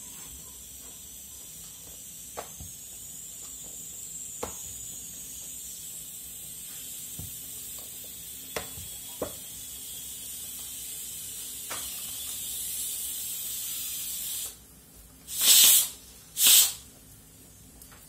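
Stovetop pressure cooker venting steam: a steady hiss that slowly grows, cuts off suddenly about fourteen seconds in, and is followed by two short, loud blasts of steam about a second apart. A few light knocks of a rolling pin on the rolling board come earlier.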